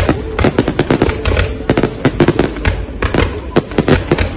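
Fireworks going off in a dense, irregular barrage of sharp bangs and pops, several a second, over a continuous low rumble.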